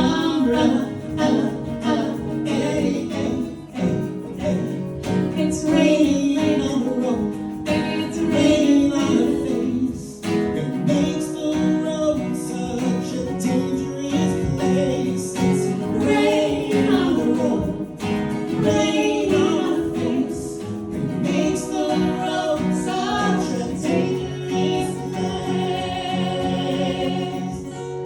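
Vocal ensemble singing in harmony over instrumental accompaniment, part of an arranged pop and show-tune medley.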